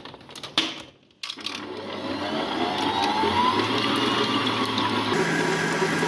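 Electric stand mixer starting up and whipping eggs with a wire whisk in a stainless steel bowl, beginning on low speed. Its motor whine rises, then steps up to a higher speed about five seconds in. A few knocks and clicks come in the first second, before the motor starts.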